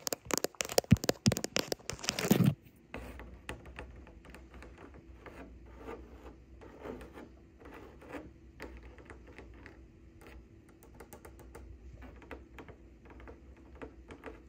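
Long acrylic fingernails scratching close to the microphone on a woven textured surface, dense and loud. After a sudden cut about two and a half seconds in, the nails give quieter, scattered taps and scratches on a painted wall over a faint steady hum.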